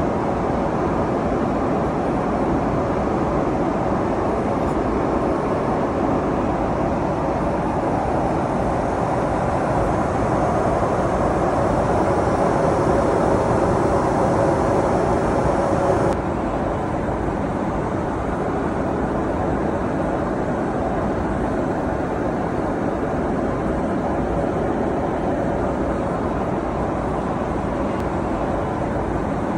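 Steady rushing cabin noise of a Boeing 777-300ER airliner in flight, a constant mix of engine and airflow noise. About sixteen seconds in, the sound changes abruptly, stepping down in level and losing some of its higher hiss.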